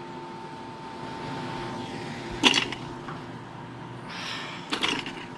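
Vintage Doppelmayr DC-driven platter lift running: a steady electrical hum with two held tones from the drive and its converter. A sharp clack comes about two and a half seconds in, and a rustle with a few clicks near the end.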